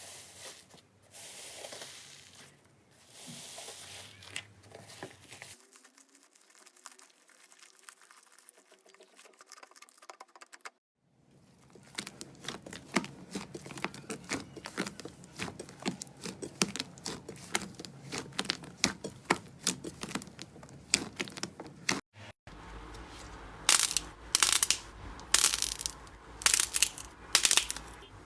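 Slime being squeezed and pressed, making crinkly, crackling pops and clicks. It comes in several short takes: a quieter stretch, then a dense run of tiny clicks, and louder, separate crackles near the end.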